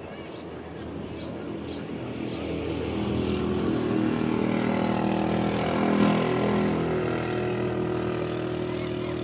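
An engine's steady drone with several tones, growing louder over the first six seconds and then holding.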